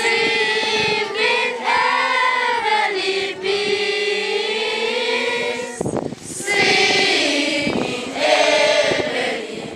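A group of children singing together, holding a long note in the middle, breaking off briefly, then singing on before fading near the end.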